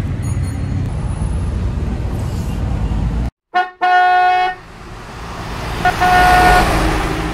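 A steady low rumble of background noise, broken off by a sudden cut about three seconds in. Then comes a loud sound-effect vehicle horn honk lasting about a second, followed by a swelling whoosh with a short beep in it.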